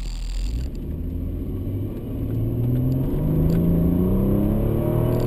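Mercedes C32 AMG's supercharged V6 accelerating, heard from inside the cabin: the engine note climbs steadily for a few seconds, then drops sharply at an upshift near the end.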